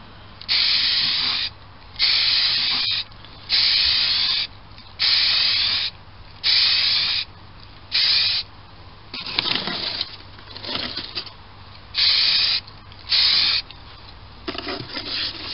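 Aerosol can of grey anti-rust primer spraying in short hissing bursts, about ten in all, one every second and a half or so. Rougher scuffing and rustling sounds come in the middle and near the end.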